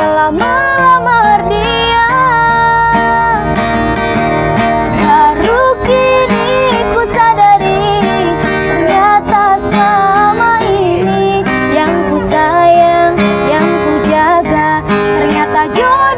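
A woman singing a slow, melodic pop song to strummed acoustic guitar.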